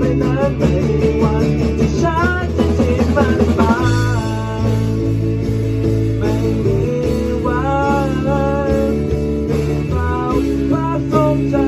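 A rock band playing live: electric guitars, electric bass and a drum kit, with a melody line on top that bends and wavers in pitch in short phrases.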